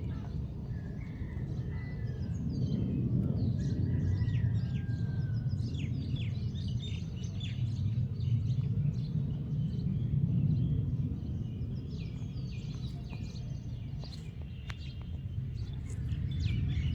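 Small birds chirping and calling in many short notes, over a steady low rumble of outdoor background noise.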